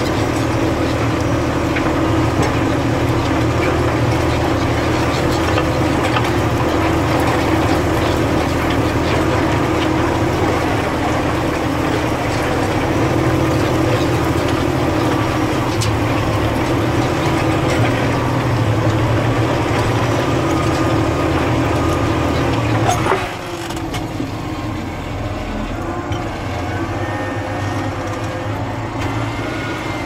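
Valtra Versu T213 tractor's six-cylinder diesel running steadily under load, pulling a five-furrow reversible plough. About three quarters of the way through there is a click, and the engine drops to a lighter, quieter note as the plough is lifted out at the headland.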